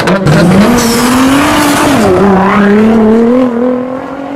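A car engine revving hard: the pitch climbs, drops about two seconds in, then climbs again before fading near the end.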